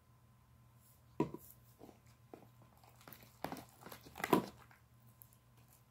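Glue slime squishing and squelching as it is squeezed and kneaded by hand in a plastic tub: a few separate wet squelches, then a quick run of them, the loudest about four seconds in.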